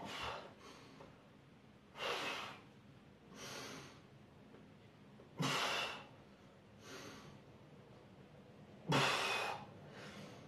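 A person breathing hard with the strain of pressing a pair of 10 kg dumbbells overhead: three loud, forced breaths about three and a half seconds apart, each followed by a softer breath.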